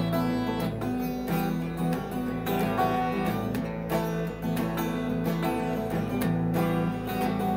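Music: an acoustic guitar strumming chords in an instrumental passage, with the chords changing every second or two.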